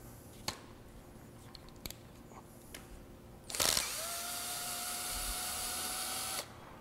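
Cordless screw gun backing a screw out of the level sensor housing of an E/One grinder pump: after a few light clicks, the motor starts about halfway through and runs with a steady whine that rises slightly in pitch, then stops suddenly near the end.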